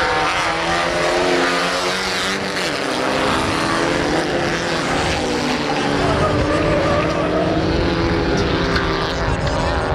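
Several bilcross race cars' engines running hard together, a blend of engine notes rising and falling as the drivers rev through the bends.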